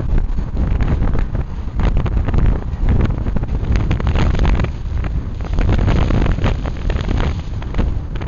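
Wind buffeting the microphone: a loud, gusty low rumble with rushing noise that swells and dips irregularly.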